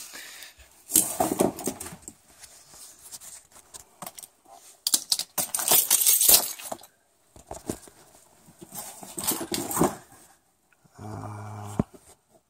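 Handling noise of a camera being moved and set in place: bursts of scrapes, knocks and small metallic clinks with quiet gaps between, and a short low hum near the end.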